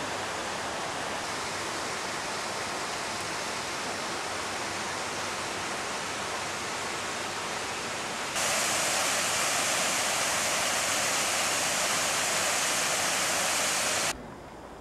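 Steady rushing of flowing water. It jumps abruptly louder and brighter about eight seconds in, holds for about six seconds, then drops off suddenly near the end.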